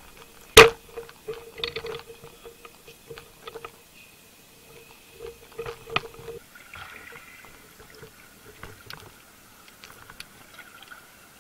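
Water sloshing and small splashes around a spearfisher and his speargun, with scattered clicks and knocks of the gun being handled and one sharp loud knock about half a second in. A little past halfway the camera goes below the surface and the sound changes to underwater.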